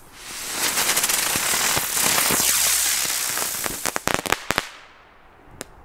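Air spinner firework going up with a loud hiss for about three and a half seconds, then bursting into a rapid crackle of many small pops that dies away; one more pop near the end.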